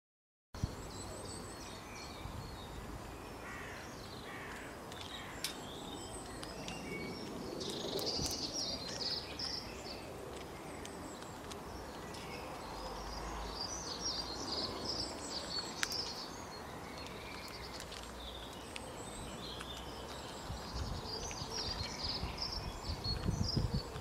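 Small songbirds chirping and trilling in the background over a steady outdoor hiss, starting abruptly about half a second in; a heavier low rumble comes in near the end.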